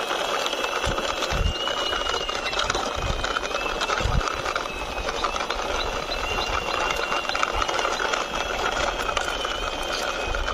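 Plastic toy excavator truck's wheels rolling and rattling over a rough concrete wall top as it is pushed along by hand, with a thin high whine over the steady grinding noise.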